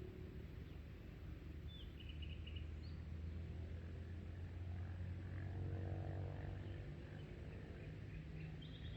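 Nature ambience: a few short, high bird chirps, a quick run of notes about two seconds in and another near the end, over a steady low rumble.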